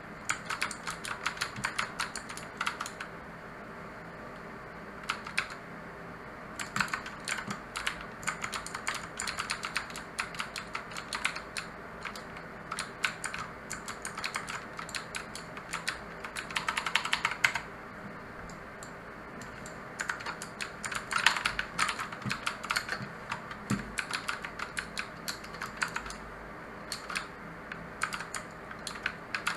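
Mechanical keyboard with clicky blue switches being typed on in runs of rapid key clicks, with a few pauses of a second or two.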